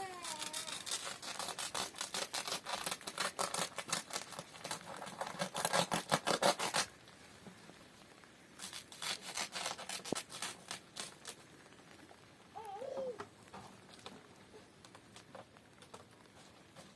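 Rapid, rhythmic scraping or rubbing strokes, several a second, in two bouts: a long one of about six seconds, then a shorter one after a pause. A short pitched cry, like an animal or a child, is heard about thirteen seconds in.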